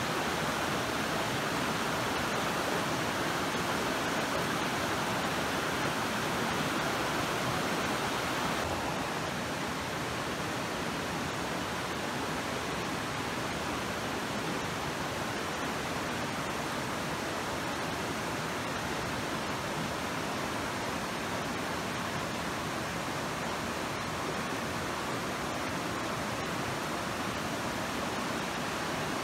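Mountain stream rushing over rocks and small rapids, a steady loud rush of water. About nine seconds in it becomes a little quieter and less hissy.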